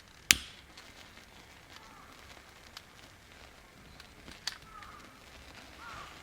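A sharp knock about a third of a second in and a smaller one about four seconds later, against a quiet background.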